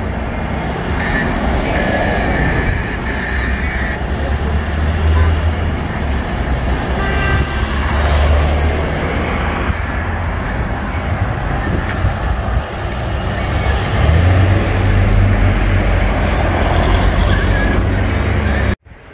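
Road traffic passing close by: cars going past with a steady low rumble and tyre noise. The sound cuts off suddenly near the end.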